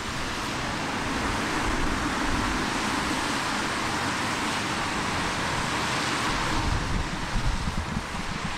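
Wind gusting on the microphone, low buffeting over a steady rushing hiss that swells between about two and six seconds in.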